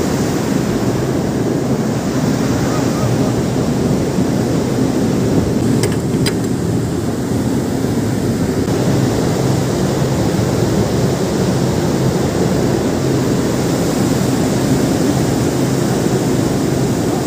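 Steady wind buffeting the microphone over sea noise on a ship's open deck, with a low steady hum underneath. Two sharp clicks about six seconds in.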